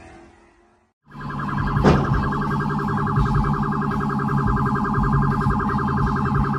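A car horn blown in one long, unbroken blast of about five seconds, starting about a second in.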